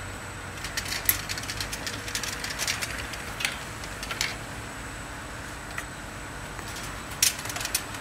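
Bottle washing machine running with a steady low hum, with irregular clusters of clinks and rattles as small glass bottles knock against the metal guides and against each other.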